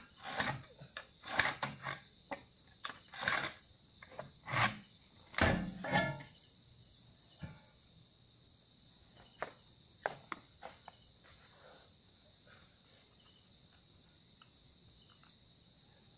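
Crickets chirring steadily, with a run of short scrapes and knocks in the first six seconds and a few scattered clicks later, from hand work on a hard floor.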